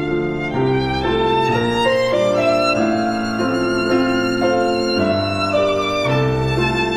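Instrumental background music led by a violin, moving from note to note over held chords.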